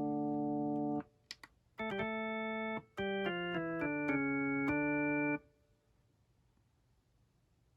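Akai MPK Mini Play MK3 keyboard playing held chords on a built-in organ-like keyboard sound. There are three groups of chords, each cutting off sharply when released, with a couple of faint clicks after the first. The chords stop about five and a half seconds in.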